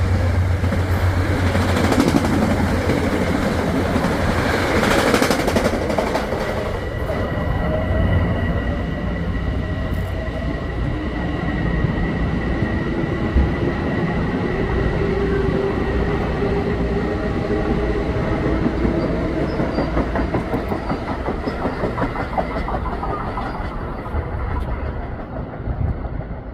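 Metro-North commuter train passing at speed, its wheels clattering over the rail joints. The sound is loudest at first and gradually fades toward the end.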